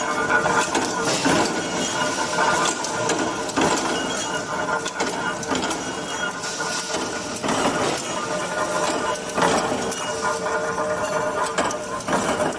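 Mechanical punch press punching holes in steel rack connector plates: irregular metallic clanks over the steady hum of factory machinery.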